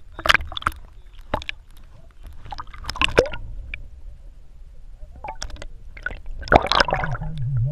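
Water splashing and sloshing close to the camera, with irregular sharp knocks and splashes. A low wavering hum starts near the end.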